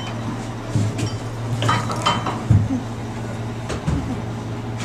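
A few scattered knocks and light clinks over a steady low hum.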